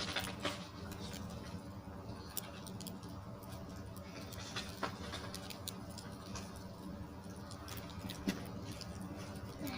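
Small fire of burning wooden boards crackling, with irregular sharp pops and clicks.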